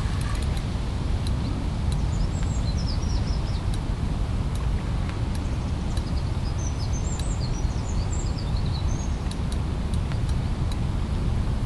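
Steady low outdoor rumble on the microphone, with small birds chirping in quick runs of high notes a couple of seconds in and again in the second half.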